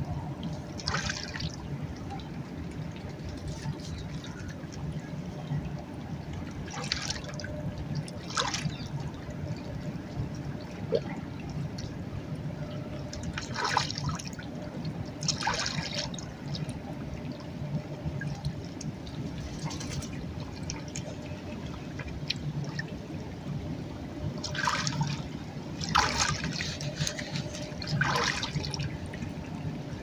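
Shallow river water lapping steadily at the shore, with short intermittent splashes as Canada geese dabble their bills in the water.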